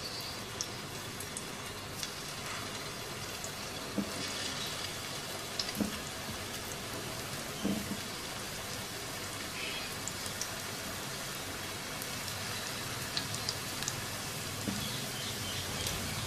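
Hot oil sizzling and crackling steadily around chicken koftas shallow-frying in a non-stick pan, with a few soft knocks as more raw koftas are set into the oil.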